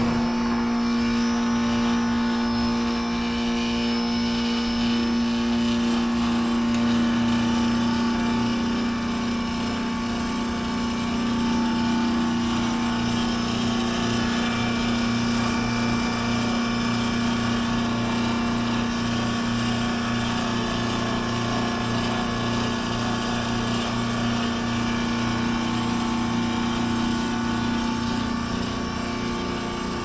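2003 AirEase Concept 1000 heat pump outdoor unit running through a defrost cycle: the compressor hums steadily with a constant low tone and a hiss over it. The loudness eases off a little near the end.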